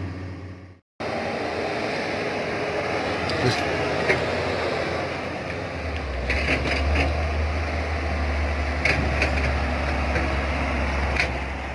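Steady running noise of a Kobelco excavator's machinery; a deeper engine hum comes in about six seconds in, with a few light clicks here and there.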